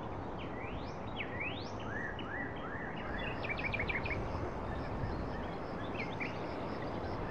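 Birds singing and chirping over a steady outdoor background hiss: several rising whistled sweeps in the first two seconds, then a quick run of short chirps around the middle, with scattered chirps after.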